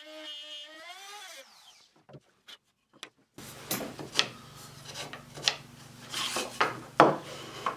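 Cheap no-name trim router running at a steady pitch, then cutting off about a second and a half in. After a short near-silent gap, a wooden dowel knocks and scrapes against a wooden board several times, with the loudest sharp knocks about four and seven seconds in.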